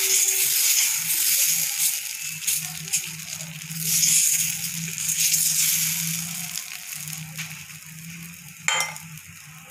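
Moong dal batter sizzling on a hot heavy plain tawa as a steel ladle spreads it in circles, the ladle scraping over the pan in swelling strokes. The sizzle fades toward the end once the spreading stops.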